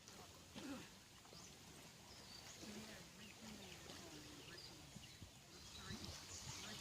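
Near silence: faint outdoor background with faint, indistinct voices.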